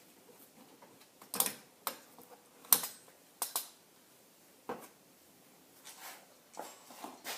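A string of sharp clicks and knocks of hard parts or tools being handled during engine work: a cluster of loud ones in the first few seconds, then a few fainter ones.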